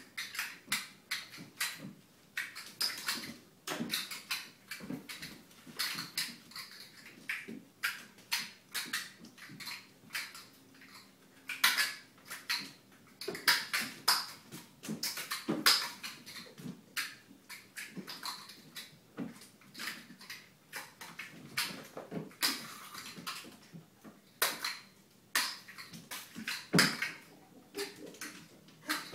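Kittens' paws and claws tapping and scrabbling on a hardwood floor as they run, jump and land: a steady stream of irregular sharp taps with a few louder thumps.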